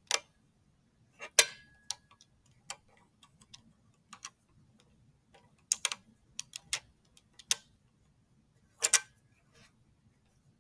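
Pieces of a magnetic molecular model kit clicking and snapping together as double bonds are fitted between atoms: irregular sharp clicks, the loudest about a second and a half in and again near nine seconds.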